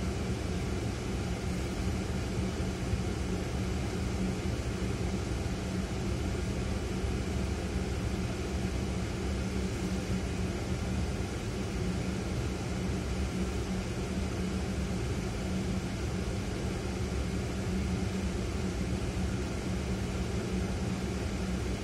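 Ford Fiesta idling while standing still, heard inside the cabin: a steady low hum and rumble.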